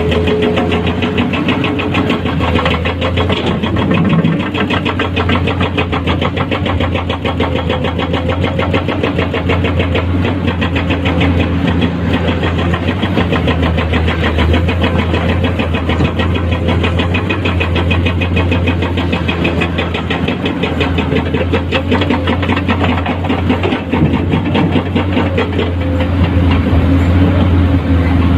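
Komatsu PC210-10 hydraulic excavator's diesel engine running steadily, loud and close, with a dense even pulse and a deep hum.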